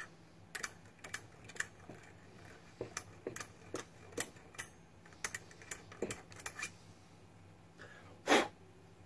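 Irregular metal clicks and light knocks as a steel front spindle is handled, turned and seated on a Ford Model A I-beam axle, about two a second, with one louder, longer clack near the end.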